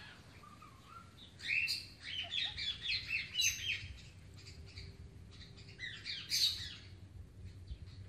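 Parrot calls: a rapid run of short chirps and squawks from about one and a half to four seconds in, then another brief burst of them around six seconds.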